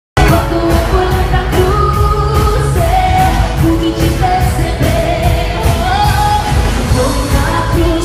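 Live pop band playing, with a woman singing lead over a steady drum beat. The sound cuts out for an instant at the very start.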